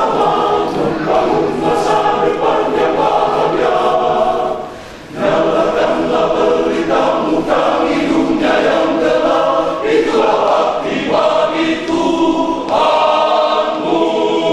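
Men's church choir singing in several parts, with a brief break between phrases about five seconds in.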